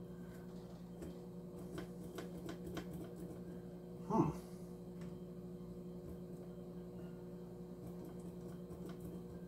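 Faint small clicks and taps from hands working on a model train's metal chassis and wires, over a steady electrical hum, with one brief louder sound just after four seconds in.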